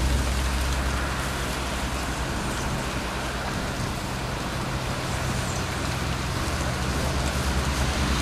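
Engine of the little tourist train running steadily: a low hum under a steady hiss, cutting off suddenly near the end.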